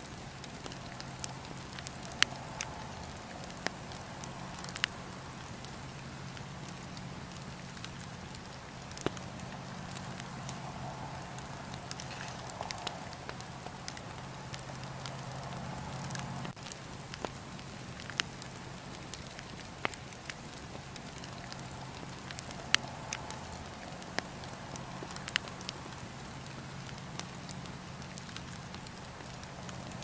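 Wood campfire of burning logs crackling, with a steady hiss and sharp pops and snaps at irregular intervals, a few of them much louder than the rest, over a steady low hum.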